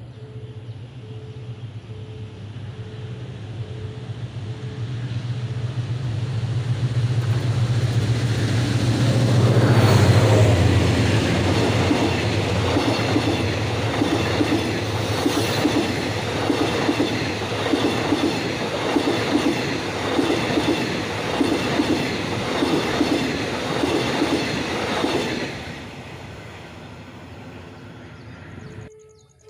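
A passenger train passing at speed. A diesel locomotive's low engine drone builds over the first ten seconds as it approaches, then the coaches run by with a steady, rhythmic clickety-clack of wheels over rail joints for about fifteen seconds, before the sound drops away near the end.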